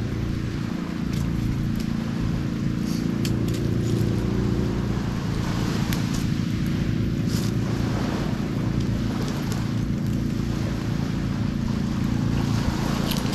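Small boat's engine running steadily, with scattered light ticks and splashes over it.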